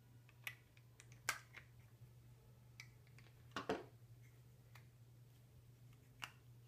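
Scattered sharp clicks and snaps as a flat-head screwdriver pries at the plastic case of a GMC Acadia key fob and the case halves are worked apart by hand. The loudest snap comes about a second in, and a double knock comes a little past halfway. A faint steady low hum lies underneath.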